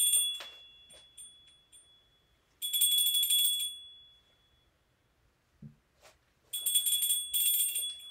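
Altar (sanctus) bells shaken three times, each a brief bright jingle about three seconds apart, the first already ringing at the start. They mark the elevation of the chalice just consecrated at the Eucharist.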